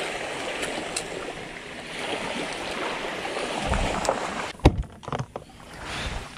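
Water splashing and sloshing, with one sharp knock about three-quarters of the way through and a few lighter knocks right after it.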